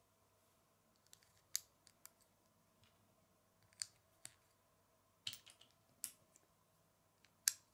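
Lego bricks being handled and pressed together on a small model: a scattered series of sharp plastic clicks and snaps, the loudest near the end.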